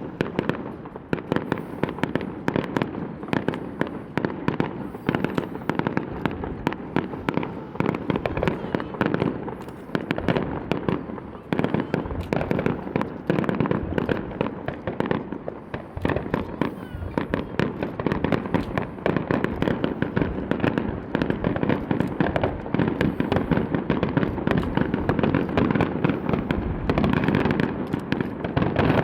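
Fireworks display in a dense, unbroken barrage of rapid shell bursts and crackling bangs, recorded on a camera's built-in microphone.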